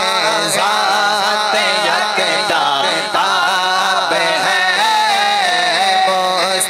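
A man's voice singing a naat (Urdu devotional poem) into a microphone, with long, wavering held notes that glide between pitches.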